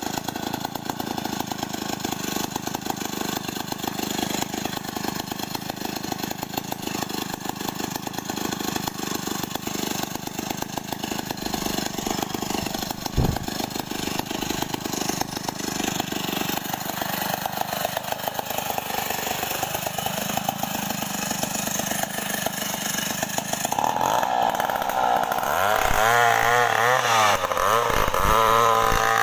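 Stihl 070 two-stroke chainsaw running steadily, with a single sharp click about halfway through. Near the end the engine revs up and down and gets louder.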